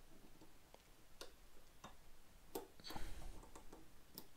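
Faint, separate metal clicks and ticks as a piston ring is spread by hand and slipped into its groove on a two-stroke piston. There are about five clicks, the loudest about three seconds in.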